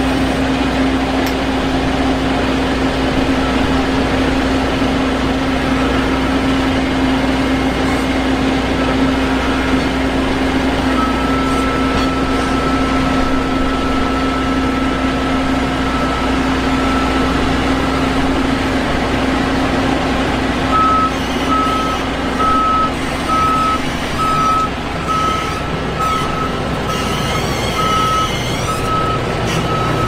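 Vishal 435 combine harvester running steadily in the crop, its engine and threshing machinery giving a constant drone. Partway through, a high electronic tone sounds steadily for several seconds, then turns into a regular beeping about once a second.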